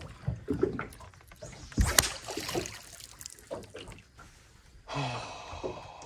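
Light water lapping against a small boat's hull, with scattered small clicks and knocks and one sharper knock about two seconds in. A short burst of noise comes about five seconds in.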